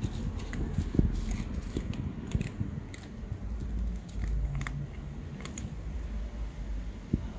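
Cats and kittens crunching dry kibble: irregular crisp clicks of chewing, over a low rumble.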